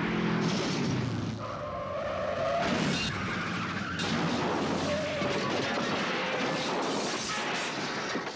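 Chase soundtrack: motorcycle and car engines revving hard, with tyres skidding and squealing.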